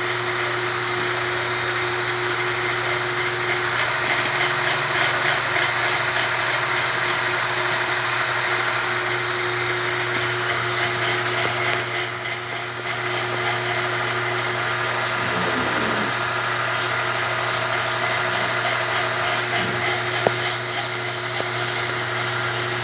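Small engine of a motorized sprayer running steadily at constant speed while termiticide is pumped into the soil through an injection rod.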